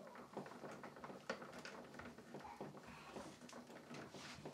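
Faint, scattered clicks and rustling as bare copper ground wires are twisted together by hand and a plastic wire nut is worked onto them.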